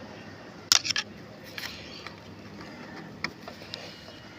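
Light hammer taps through a screwdriver, knocking a part of a tail-shaft universal joint into its seat. A quick cluster of taps comes just before a second in, then a few single taps later.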